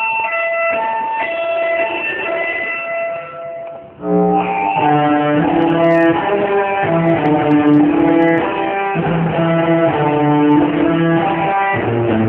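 Rock band music with electric guitar. Held high notes for the first few seconds drop away just before four seconds in, and then the full band comes in with guitar and bass.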